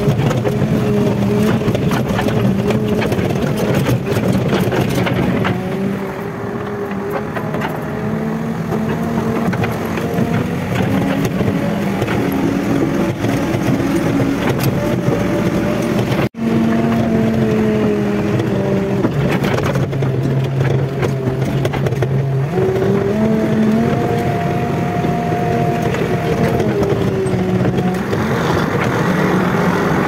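JCB 3DX backhoe loader's diesel engine running while the machine drives over rough ground, heard from inside the cab. The engine speed rises and falls, with frequent rattles and knocks.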